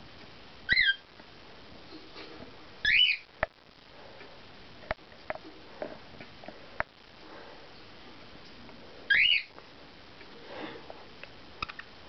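Budgerigars calling: three loud, short, whistled chirps that slide in pitch, one near the start, one about three seconds in and one past the middle, with a few sharp clicks in between.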